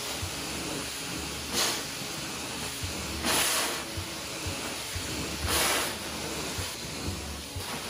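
Hot water extraction carpet-cleaning wand running on the carpet, a steady suction hiss with three louder hissing surges as the wand is worked back and forth, about a second and a half, three seconds and five and a half seconds in.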